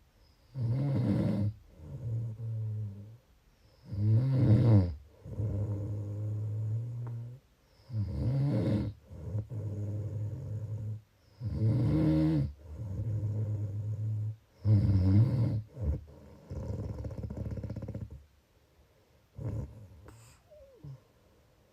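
A person snoring in a slow, regular rhythm, about one breath every four seconds. Each loud, buzzing snore on the in-breath is followed by a longer, lower sound on the out-breath. After five breaths the snoring stops near the end, leaving only a few faint small sounds.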